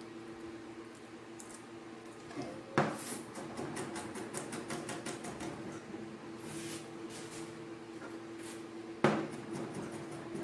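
Cleaver chopping garlic on a plastic cutting board: runs of quick, even chopping taps, with two heavy strikes, one about three seconds in and one near the end. A steady hum runs underneath.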